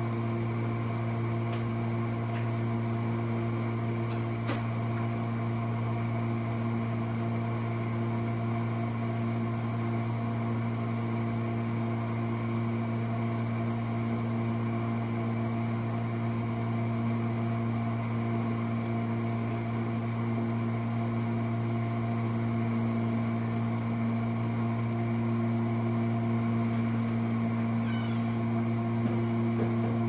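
Jenn-Air dishwasher running a rinse-only cycle: a steady hum from its wash pump motor, with a couple of faint ticks in the first few seconds.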